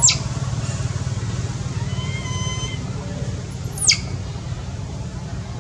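Two short, shrill animal calls, each sweeping steeply down in pitch, one at the very start and one about four seconds in, over a steady low rumble.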